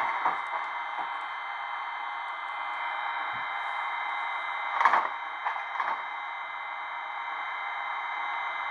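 Siemens Vectron electric locomotive sound played by the LokSound decoder's small speaker in an H0 model: a steady whirring noise with high whining tones, broken by a few short clicks, the loudest about five seconds in.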